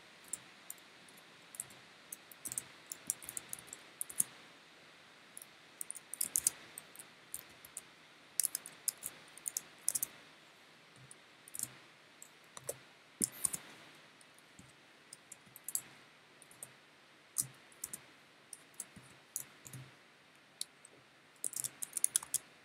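Slow, uneven typing on a computer keyboard: single key clicks and short quick runs with pauses between them, over a faint steady room hum.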